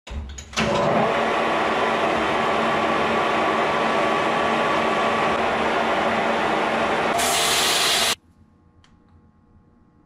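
Metal lathe running, its four-jaw chuck spinning a small round workpiece, a loud steady machine noise that starts abruptly. Near the end it turns harsher and higher for about a second, then cuts off abruptly.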